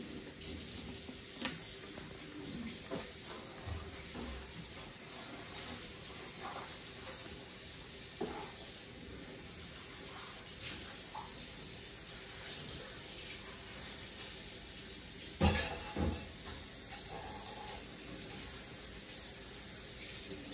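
Steady faint hiss with scattered light taps, as a small terrier's paws and claws shift on a tabletop, and a louder thump about fifteen seconds in.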